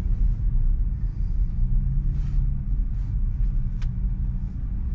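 Steady low road and tyre rumble inside the cabin of a Tesla Model 3 moving slowly in traffic, with a few faint ticks.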